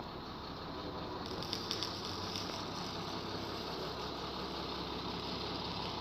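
Engine idling steadily with a low hum. A little over a second in a higher hiss joins it, with a few brief clicks.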